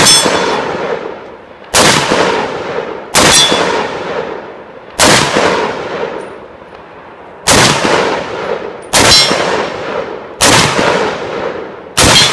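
SIG Sauer P716 pistol in 7.62x51 (.308) firing eight single shots at an uneven pace, roughly one every one and a half to two and a half seconds. Each shot is loud and sharp and trails off in a long echo.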